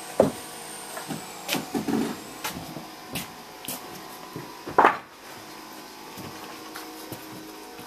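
Scattered knocks and taps of deck boards being handled and shifted, in a pause between power-saw cuts. The loudest knocks come near the start and about five seconds in.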